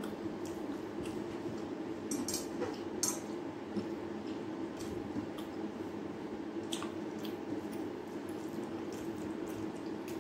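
Fingers mixing rice and curry on a steel plate: soft wet squishing with scattered light clicks and scrapes of fingers against the metal, a couple of sharper clicks a few seconds in.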